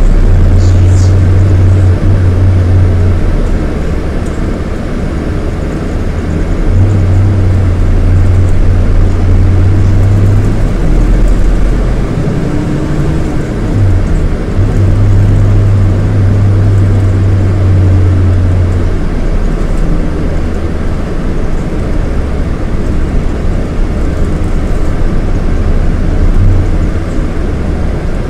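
Scania DC9 230 hp diesel engine of a Scania K230IB coach running on the move, its deep drone swelling in three spells of several seconds and easing between them.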